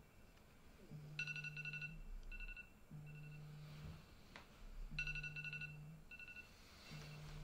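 Smartphone alarm going off: a repeating ringtone of rapid high beeps, while the phone vibrates against the wooden bedside table with a low buzz in roughly one-second pulses about every two seconds.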